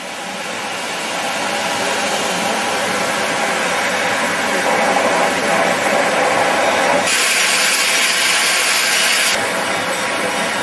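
NSB class 7a steam locomotive, built 1892, heard from its footplate as it runs slowly: a steady, loud hissing noise that builds over the first two seconds. A louder, brighter hiss starts suddenly about seven seconds in and stops about two seconds later.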